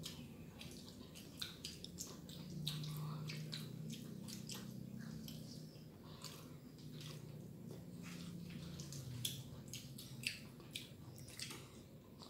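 Close-up mouth sounds of children chewing food: a steady run of small wet clicks, smacks and squishes. A low hum runs under them from a couple of seconds in until near the end.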